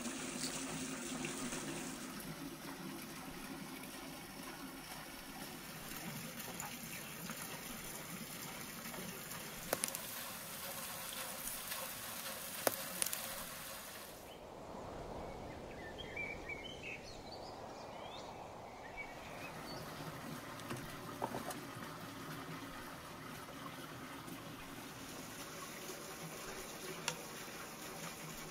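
Creamy sauce simmering and bubbling in a cast-iron skillet on a wood-fired stove, a steady sizzling hiss with a few sharp crackles. About halfway through it gives way for a few seconds to a duller, softer hush, then the simmering sound returns.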